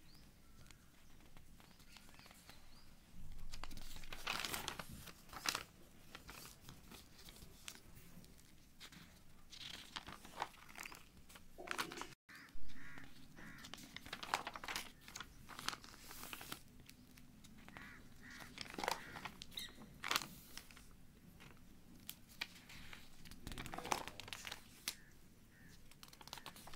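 Paper pages rustling as a hand turns through a handwritten project file, with irregular crinkles and handling clicks and a brief dropout near the middle.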